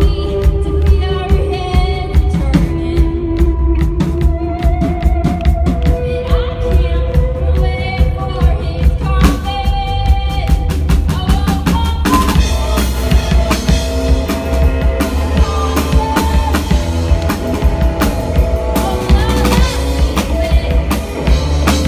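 Rock band playing live, drum kit with bass drum and snare driving under held melodic notes and heavy bass. About halfway through the sound grows fuller and brighter.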